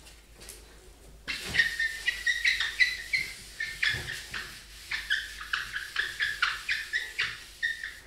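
Whiteboard eraser rubbed quickly back and forth across a whiteboard, squeaking in a rapid run of short strokes that starts about a second in.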